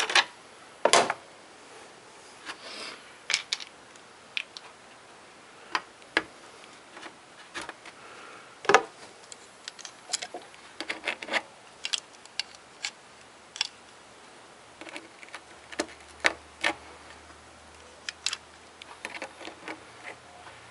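Scattered sharp clicks and light knocks of hands working a rubber top radiator hose and its metal spring clamp onto the radiator neck, at irregular intervals, the loudest about a second in and about nine seconds in.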